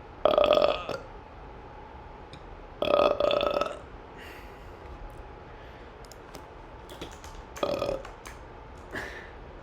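A person burping three times: two long, loud burps, one near the start and one about three seconds in, then a shorter, fainter burp near the end. Faint clicks can be heard between them.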